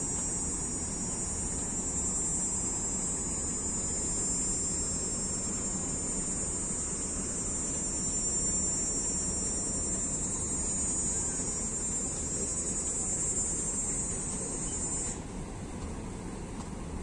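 Steady, high-pitched insect chorus that cuts off suddenly about fifteen seconds in, over a low steady rumble.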